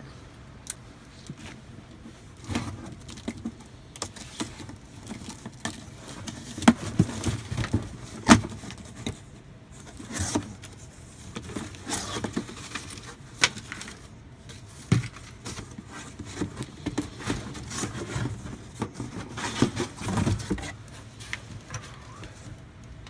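A cardboard box being unpacked and a replacement electric heating element handled: scattered knocks, scrapes and rustling, broken by sharp clicks, the loudest two about seven and eight seconds in.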